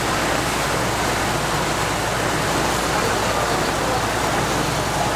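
Passenger boat under way: a steady rush of water along the hull over the low, even drone of its engine.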